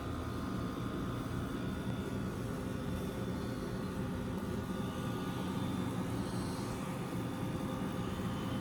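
Window air conditioners running steadily: an even fan rush with a constant hum underneath.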